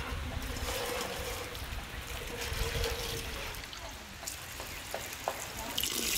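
Water running from a tap into an enamel bowl of raisins and spilling over the rim as the raisins are rinsed: a steady splashing trickle with a few small knocks.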